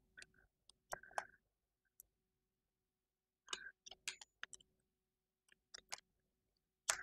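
Light clicks and taps of board-game cards being handled and laid down on a table, a few scattered single taps with small clusters about one second in, around four seconds in and near the end.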